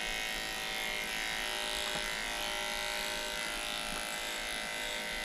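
Electric pet grooming clippers running steadily while shaving through a dog's thickly matted, felted coat.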